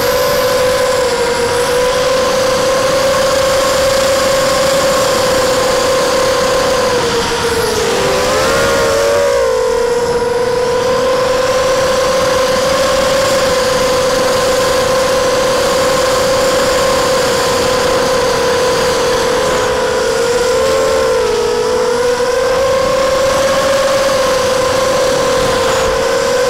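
Brushless motors and 5-inch propellers of a ZMR250 FPV miniquad whining steadily in flight, heard from its onboard action camera, with a hiss of air over it. The pitch dips and wobbles briefly about 8 seconds in and again around 20 seconds in.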